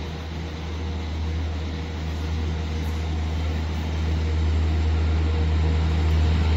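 Low, steady drone of a Class 175 diesel multiple unit's engines as the train approaches along the through line, growing gradually louder as it draws closer.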